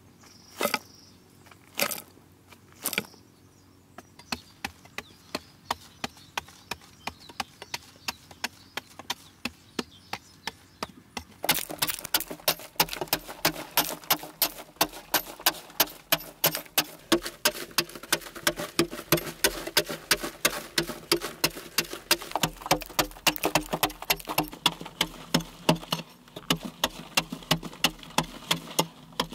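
Hand digging tool striking packed earth. A few separate blows, then a steady run of strikes at about two a second, which quicken to three or four a second and grow louder about twelve seconds in.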